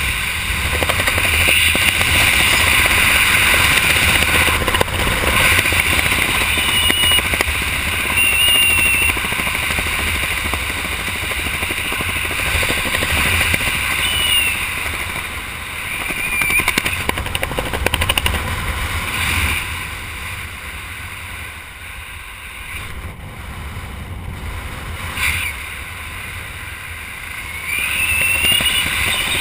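Wind rushing over the microphone of a skydiver's camera under an open parachute canopy: a steady rumbling hiss with gusts, easing somewhat about two-thirds of the way through and picking up again near the end. A few short high squeaks sound over it.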